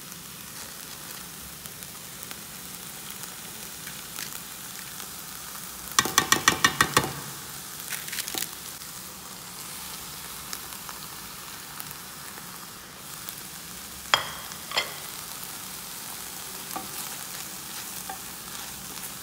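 Onions sizzling in a stainless steel pan as they are stirred, with garlic and ground spices being added. About a third of the way in comes a quick run of about seven sharp, ringing knocks, the loudest thing here, and two more single knocks come later.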